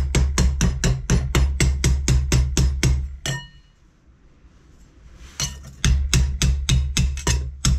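Rapid hammer blows, about five a second, on a welded sheet-steel exhaust cone held over a pipe in a vise: the weld area of a homemade two-stroke expansion chamber being hammered into shape. The blows stop a little past three seconds in and start again about two seconds later.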